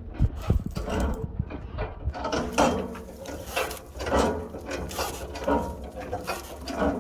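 Cabover truck's cab-tilt mechanism being worked, with repeated ratcheting mechanical strokes about one or two a second over a steady low rumble.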